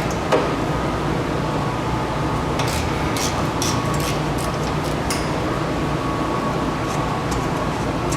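Short metallic scrapes and clicks of hand work on a car's exhaust as rubber exhaust hanger bushings are worked off their rods: a knock just after the start, then scattered scrapes in the middle and again near the end. Under it is a steady background hum.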